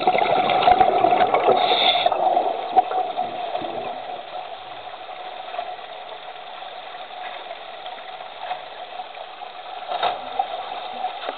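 Underwater recording: a loud rush of water noise for about the first two seconds, then a steady machine-like hum underneath the water sound.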